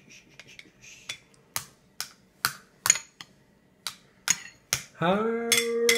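A spoon clinks and taps against a stainless steel baby bowl in short, sharp clicks, about two a second. About five seconds in, a voice starts holding one steady note.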